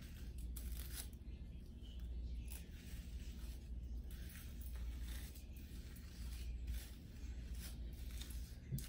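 Hard hairbrush scratching up through thick, gelled hair in repeated irregular strokes, with hands rustling in the hair, over a low steady hum.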